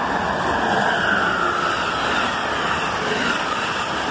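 Amtrak passenger train led by an ACS-64 electric locomotive passing through the station at speed: a steady rush of wheel-on-rail and air noise that swells about a second in, with a whine that falls in pitch as it goes by.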